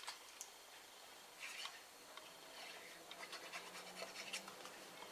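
Faint, scattered rustling and scratching as a small piece of patterned paper is handled and liquid glue is applied to it from a fine-tip glue bottle.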